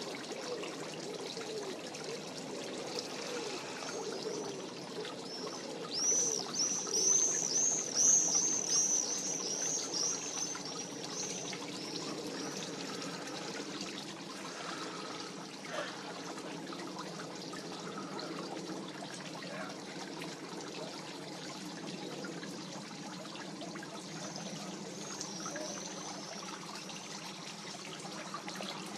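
A songbird singing a fast run of high, repeated chirping notes about six seconds in, lasting about five seconds, with a shorter, fainter run near the end, over a steady rushing background noise.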